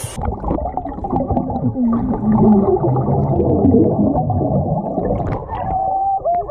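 Underwater sound of a swimming pool heard through a waterproofed action camera: dull, muffled water noise and bubbles, with a few muffled wavering tones from the girls' voices under water.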